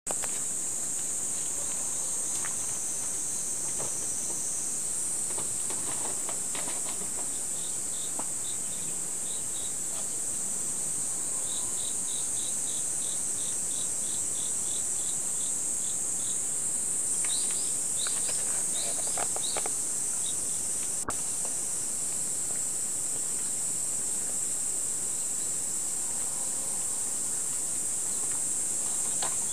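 Insects chirring steadily in a high-pitched drone, joined in the middle by a run of short chirps repeated two or three times a second, with a few faint clicks.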